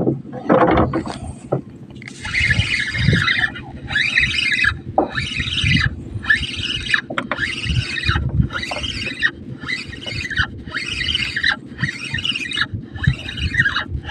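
Spinning reel being cranked against a hooked fish on a bent rod, a whirring that rises and falls about once a second with each turn of the handle.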